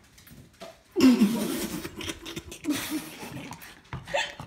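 A girl laughing: a loud, breathy laugh about a second in, then a few softer laughs, with a sharp knock near the end.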